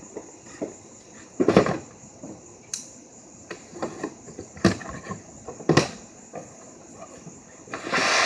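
A cardboard box of wheelbarrow parts being handled and set down: several dull thumps and knocks, the loudest about a second and a half in, then a longer rustling scrape near the end as the box is worked open. A faint steady high-pitched chirr runs underneath.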